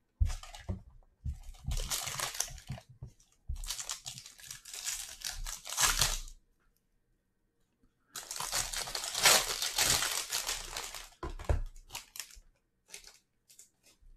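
Foil wrapper of a trading-card pack crinkling in the hands as it is worked and torn open, in three rustling stretches of a few seconds each with a short silent pause in the middle, then a few light clicks near the end.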